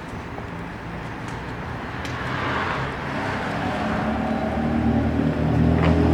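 Heavy truck's diesel engine running, a steady low drone that grows louder through the second half.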